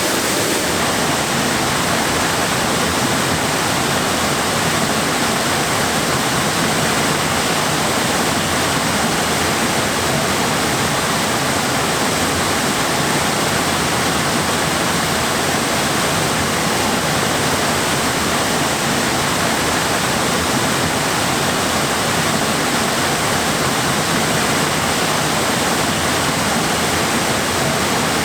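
Waterfall: water pouring and cascading down rocks in a steady, even rush.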